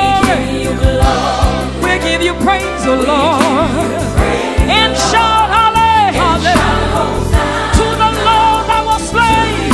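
Live gospel worship music: a female lead singer singing into a microphone with a backing choir, over a live band with drums. Her voice holds a wavering note about three seconds in.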